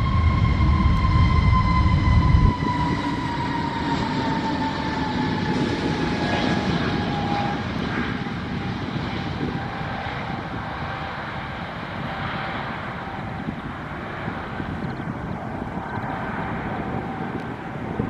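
Jet airliner's engines with a whine that slowly falls in pitch, over a steady rushing noise. A heavy low rumble fills the first two and a half seconds and cuts off suddenly.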